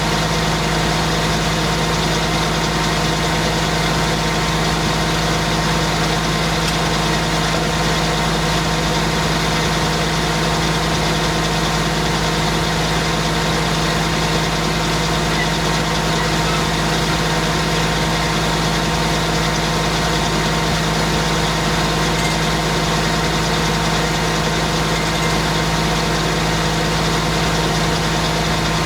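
Engine driving the homemade circular sawmill, running at a steady speed, with an unchanging pitch and level throughout.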